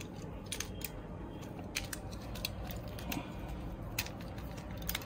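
Scattered light clicks and taps from a small battery-powered micro drilling pen being handled as its rechargeable cell is fitted and the barrel screwed tight.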